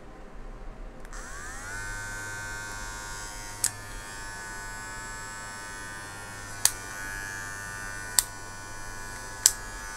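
Cordless DOG CARE pet hair clipper switched on about a second in: its small electric motor spins up with a rising whine, then runs with a steady buzz. Four sharp clicks stand out over the running motor.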